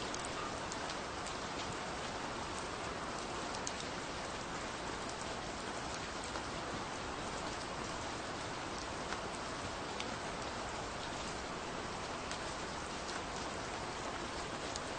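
Steady, gentle rain falling on a surface, with scattered individual drops ticking through it.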